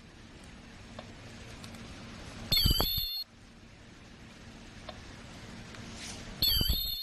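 Automatic honey stick filling and sealing machine running with a steady low hum. As it cycles, a loud, high-pitched burst of under a second comes about four seconds apart, twice, and each burst cuts off sharply.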